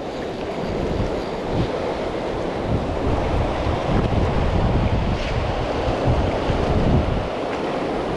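Gunnison River rapids rushing over rocks, a steady whitewater noise, with wind buffeting the microphone in uneven gusts.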